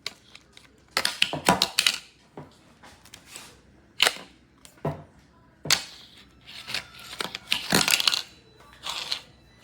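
Handling noise: a string of irregular clicks and knocks with short rustling stretches, loudest about a second in and again near the end.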